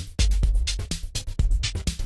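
Background music with a fast, steady drum-machine beat over deep, held bass notes.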